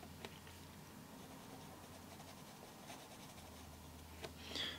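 Faint scratching of a 2B graphite pencil shading on paper over a layer of chocolate.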